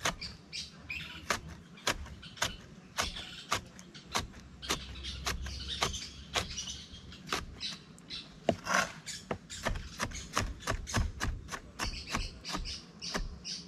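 Chef's knife chopping a yellow bell pepper on a wooden cutting board: a string of sharp, uneven knocks, about two or three a second, as the blade strikes the board.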